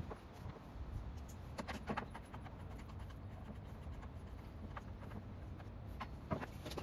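Scattered light clicks and taps as hands work on the engine of a STIHL FS250 brush cutter, with a cluster about two seconds in and another near the end, over a low steady rumble.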